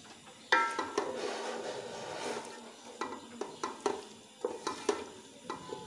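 Wooden spoon stirring and scraping an onion-and-spice masala as it fries in oil in an aluminium pot, over a steady sizzle. The spoon knocks against the pot several times, the loudest about half a second in.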